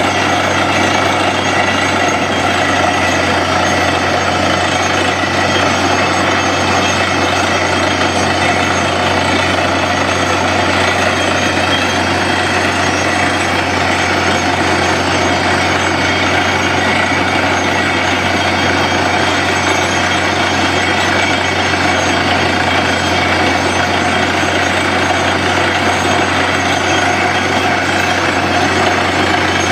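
Truck-mounted compressor borewell drilling rig running steadily while drilling: the engine and air compressor at a constant load, with a fast, even chatter from the drill working in the hole.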